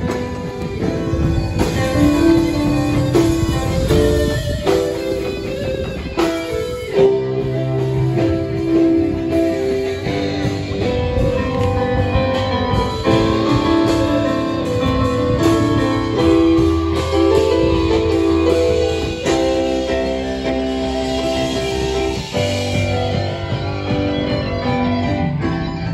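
Background music led by guitar, with bass notes underneath.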